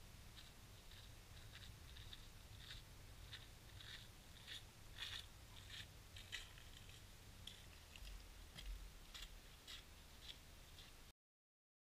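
Faint footsteps crunching on a snowy, frozen hill path, a quick irregular run of crisp crunches over a low wind rumble on the microphone. The sound stops abruptly near the end.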